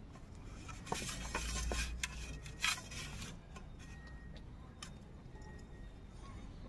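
A hand rubbing cooking oil over the inside of a stainless steel plate: a soft rubbing sound from about one to three seconds in, with a few light clinks of the metal plate.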